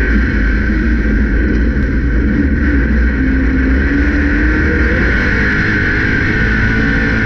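Grand National race car engine running loud and steady, heard from inside the car's cockpit, its pitch rising and falling slightly.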